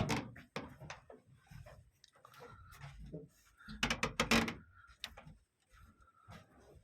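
Scattered knocks and clatter of someone moving about indoors, with a close run of knocks about four seconds in.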